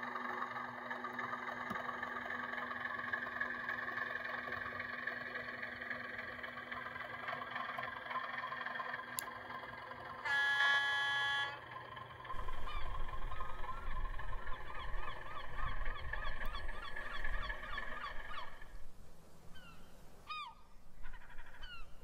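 Gulls calling repeatedly over a steady mechanical drone, with one short loud horn blast about ten seconds in and a low rumble from about twelve seconds on.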